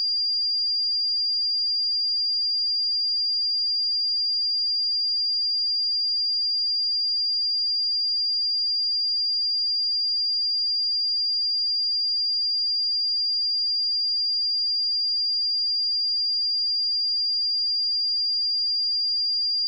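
A pure sine-wave test tone at 4796 Hz, one steady high-pitched pitch held unchanged at constant level.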